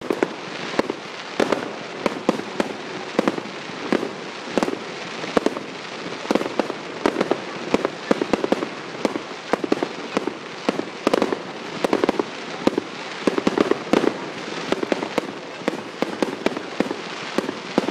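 Fireworks going off in a rapid barrage: sharp bangs and crackles, several a second, over a steady background of noise.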